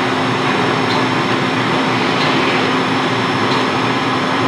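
Steady mechanical running noise with a constant low hum and a faint high whine, and a light tick about every second and a half.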